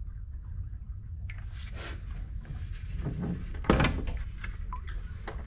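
Rubber toilet plunger being worked and moved about in a ceramic toilet bowl just after the blockage has cleared and the bowl has drained: a few separate squelches and thunks, the loudest about three and a half seconds in.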